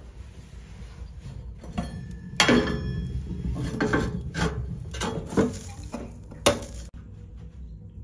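Clanks and scrapes of metal on metal as the round lid of a wood stove's cooking hole is lifted off and set aside on the stovetop, then an enamel kettle is set down over the open hole. There are several sharp clanks: the loudest comes about two and a half seconds in, and another sharp one comes about six and a half seconds in.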